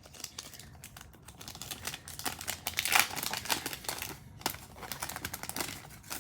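Trading-card pack wrapper crinkling and rustling as it is torn open and the cards are pulled out, an irregular crackle that peaks about three seconds in.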